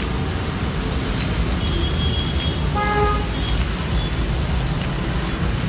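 Steel scraper chopping and scraping on a sizzling griddle over steady street traffic noise. A vehicle horn gives one short toot about three seconds in.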